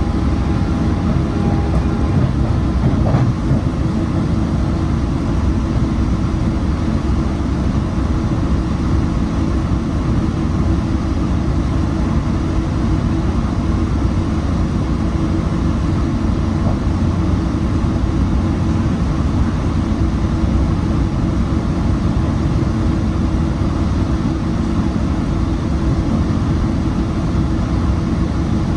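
Metrolink commuter train (EMD F59PH-hauled) running along the track: a steady, loud rumble of wheels on rails and running gear. A faint high tone fades out about two seconds in, and there is a single knock about three seconds in.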